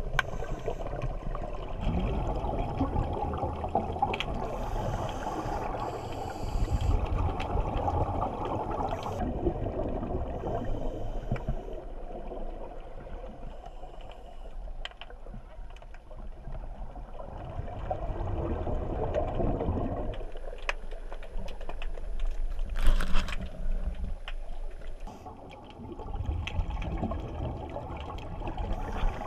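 Underwater sound picked up through a camera housing: muffled gurgling and rushing of water and divers' scuba bubbles, swelling and easing in waves, with one short sharp hiss about two-thirds of the way through.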